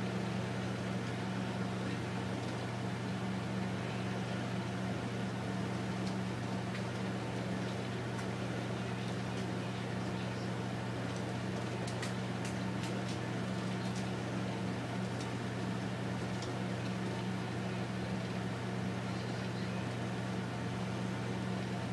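Steady low electrical hum, with a few faint light ticks about twelve seconds in.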